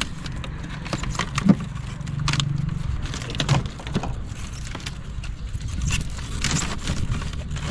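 Plastic drink bottles knocking and crinkling against one another as a hand rummages through them in a chest cooler, in irregular clicks and knocks over a steady low rumble of street traffic.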